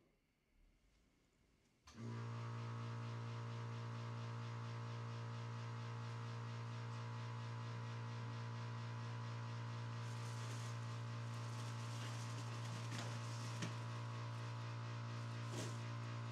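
Air compressor running with a steady electric motor hum while it pumps pressure into a water pipe for a leak test. It starts abruptly about two seconds in and stops abruptly at the end.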